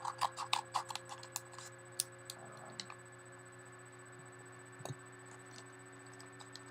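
A mailed package being handled and opened: a quick run of light clicks, about four a second, that thins out after a second or so, then a single soft thump near the end, over a faint steady electrical hum.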